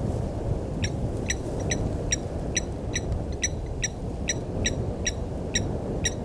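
A bird calling a short, clear note over and over, about twice a second, over a steady low rumble.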